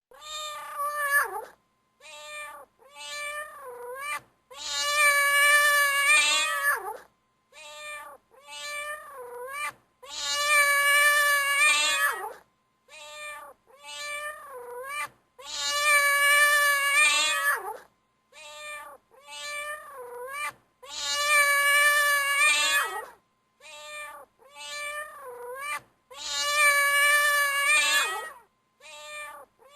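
Domestic cat howling: a long drawn-out howl about every five and a half seconds, with two or three short meows between that drop in pitch at their ends, the same pattern repeating over and over.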